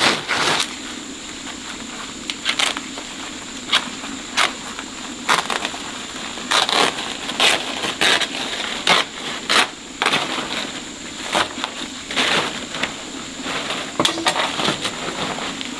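Irregular crunching and snapping, a dozen or more short sharp sounds at uneven intervals, over a faint steady high tone.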